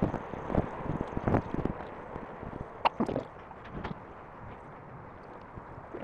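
Wind buffeting the microphone of a handlebar-mounted camera on a moving road bike, with irregular thumps and rattles from the ride, busiest in the first few seconds and with one brief sharper sound about three seconds in.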